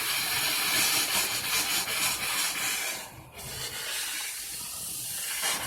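Sprinkler system's inspector's test port discharging, sputtering air and water with an uneven hiss that dips briefly about three seconds in and runs quieter afterwards. The sputter is air still mixed into the water just arriving at the end of the system.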